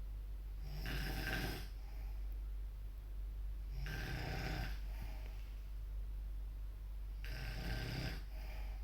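A person snoring heavily in deep sleep: three loud, rasping snores about three and a half seconds apart, each followed by a softer short breath.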